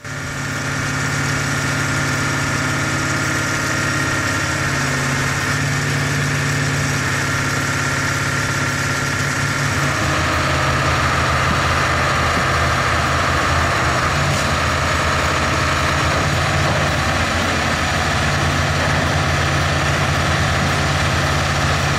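Heavy machine's engine running steadily with a low drone. A higher whine comes in over it about halfway through.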